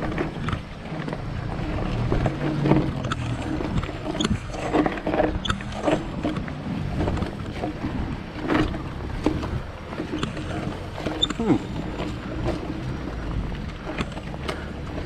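Marin San Quentin 1 mountain bike being pedalled up a dirt track: a steady low rumble of tyres and wind on the microphone, with scattered knocks and clicks from the bike rattling over the rough ground.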